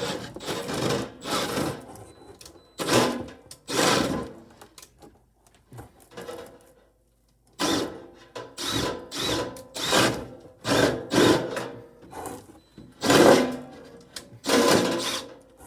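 Power drill with an auger bit boring a hole through plywood, run in about a dozen short bursts of under a second each, with a pause of about two seconds midway. The drill is powerful enough to grab and jerk in the hands.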